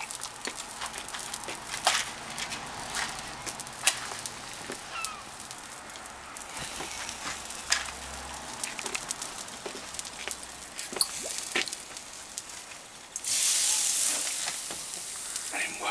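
Burgers and sausages sizzling on a charcoal barbecue grill, with scattered crackles and pops from the fire. About 13 seconds in comes a sudden loud hiss that fades over a couple of seconds, as Sambuca is splashed onto the hot grill.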